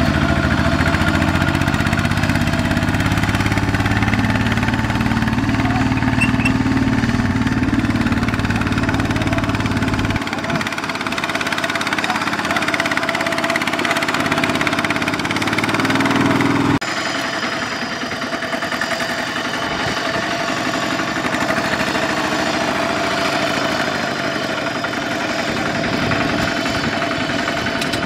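Single-cylinder diesel engine of a two-wheel walking tractor running while it pulls a loaded trailer. The sound changes abruptly twice, about ten and seventeen seconds in.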